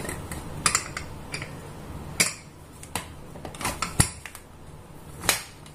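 Aluminium pressure cooker lid being worked loose and opened: a series of sharp metallic clicks and knocks, about seven in all, the loudest about four seconds in.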